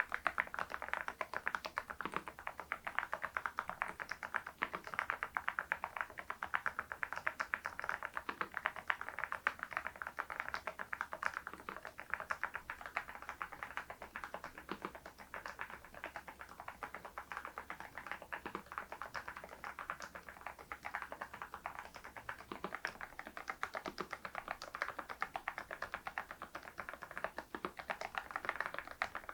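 Continuous typing on an RK R99 mechanical keyboard fitted with HMX V0-SS switches: a steady, rapid stream of key clicks and clacks with no pauses.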